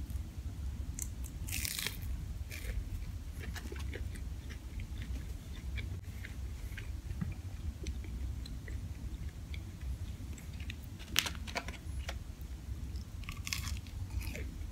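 Close-miked chewing and crunching of a deep-fried egg roll, with sharp bite crunches a couple of seconds in, about three-quarters through and again near the end, over a low steady hum.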